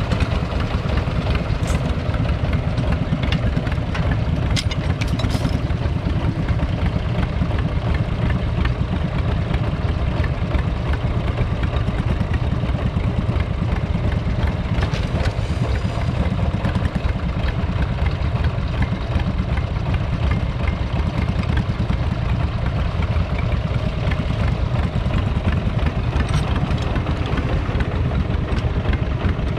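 1944 John Deere Model L's 1.1-litre two-cylinder petrol engine running steadily under load while pulling a plough, with a few brief clicks over it.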